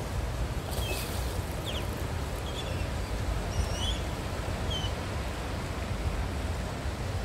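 Steady low rush of wind on the microphone and moving water around a small boat, with a few short high chirps between about one and five seconds in.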